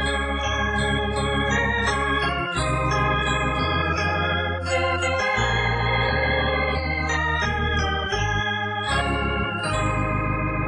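Electronic organ playing sustained chords over a held bass, the chords changing every second or two.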